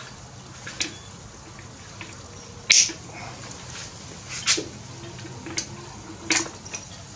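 Five sharp clicks and knocks of hand work on a motorcycle's rear fender and seat parts, the loudest about three seconds in, over a faint steady hum.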